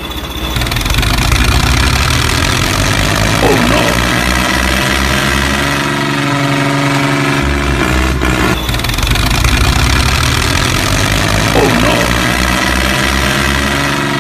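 An engine running steadily with a pulsing low throb. It drops out briefly about eight seconds in, and a short swooping tone passes over it twice.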